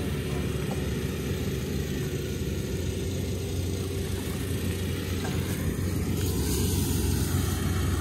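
Combine harvester's engine running steadily, a low hum that grows a little louder in the second half.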